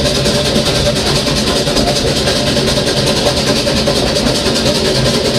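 Steam train running steadily, heard from on board: a continuous rumble and rail noise with a faint steady tone held throughout.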